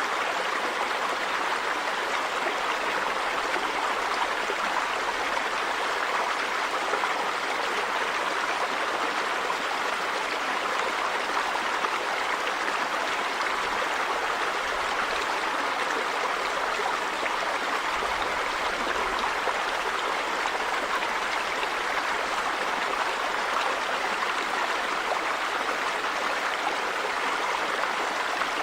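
River water running over rocks: a steady, even rush with no pauses or changes.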